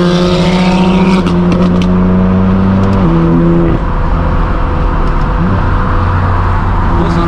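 Straight-piped BMW M4 F82 with an AWE non-resonated track exhaust, its twin-turbo inline-six droning steadily at freeway cruise, heard from inside the cabin. The note drops in pitch about three seconds in and climbs again near the end.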